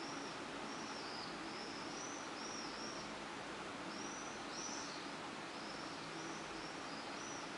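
A bird chirping, a string of short high arching notes about two a second, with a pause a little past the middle, over a steady hiss.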